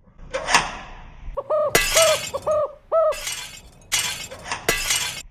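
Something dropped in the kitchen and crashing on the floor, with a sharp smash about half a second in and several more loud crashing bursts after it. Four short rising-and-falling pitched cries come in between the crashes.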